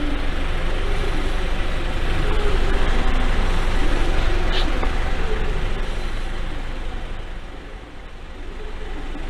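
A vehicle engine running steadily with a low hum under a broad noise, dropping away about eight seconds in and then coming back up.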